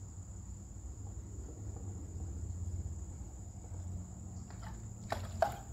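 Insects, crickets or similar, giving a steady high-pitched drone over a low background rumble, with a faint brief sound about five seconds in.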